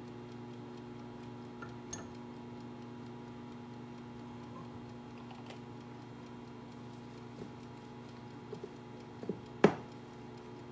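Faint, rapid, steady ticking of a kitchen timer over a steady appliance hum in a kitchen. A small click comes about two seconds in, and a single sharp knock near the end as a wooden wall-cabinet door is opened.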